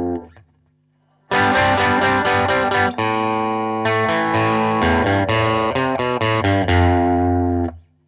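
Strat-style electric guitar (a Guild SC3) with Radioshop ID:Evolution single-coil pickups, played dry through a small 10-watt Vyse amp with no reverb. A ringing phrase dies away at the start, and after a short pause about a second in, a run of picked notes and chords plays until it stops shortly before the end.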